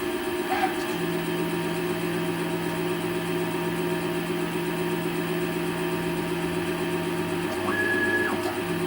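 CNC lathe running a facing program: a steady motor hum from the spindle and the axis drives. Near the end a brief higher whine rises in and drops away as the tool moves.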